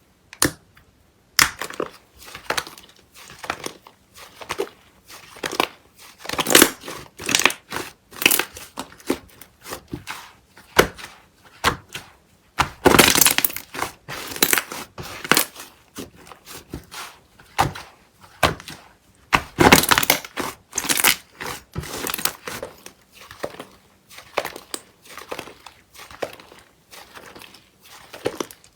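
White slime being handled, giving a steady run of irregular crackles and pops, with two longer, louder crackling bursts about halfway through and about two-thirds of the way in.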